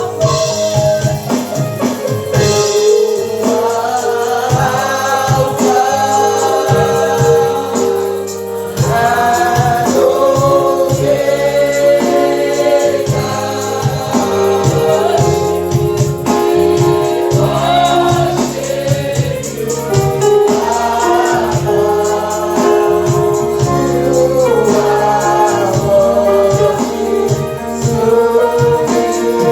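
Congregational gospel worship singing: a choir and congregation singing over keyboard accompaniment with a steady beat.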